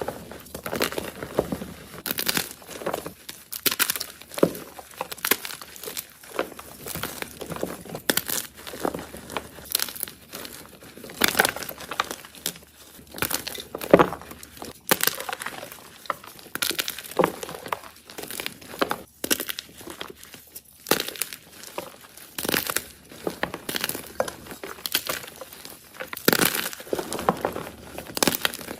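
A soft block of gym chalk being crushed, making repeated crunches and crumbles that come irregularly, about one or two a second.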